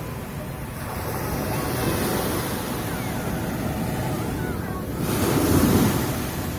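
Mediterranean sea waves washing on the shore in a steady rush, with one bigger wave breaking loudest about five seconds in. Wind buffets the microphone.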